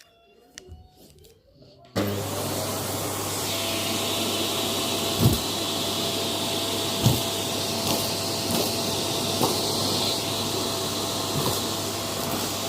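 A motor-driven machine switches on suddenly about two seconds in and runs steadily with a low hum, a steady whine and a hissing rush of air, with a few sharp clicks along the way.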